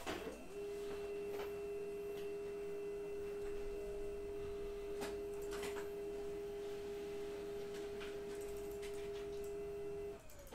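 A steady pure electronic tone: one unwavering mid-pitched note that starts about half a second in and cuts off suddenly near the end, with a few faint clicks over it.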